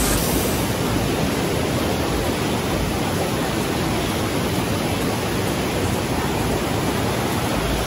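A rocky mountain river rushing over boulders in shallow rapids: a steady, even rush of water.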